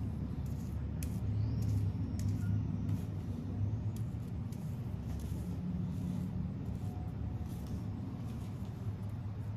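A steady low rumble, with faint scattered taps and scrapes of a foam paintbrush being dabbed on a paper plate of paint and on a pumpkin.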